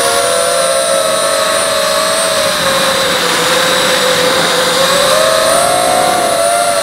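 Racing quadcopter's four Emax 2204 2300kv brushless motors and propellers whining on a 4S battery, several close tones wavering together over a steady rushing hiss. The pitch sags a little in the middle and rises again about five seconds in.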